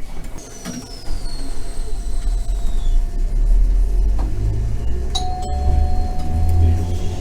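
Randen streetcar running, heard from inside the car: a thin electric whine falls in pitch over the first few seconds while the low rumble of the car builds. A click about five seconds in is followed by a held, bell-like tone.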